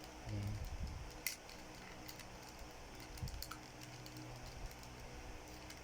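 Scattered light clicks and taps of small plastic toy pieces being handled and fitted together, over a faint steady hum.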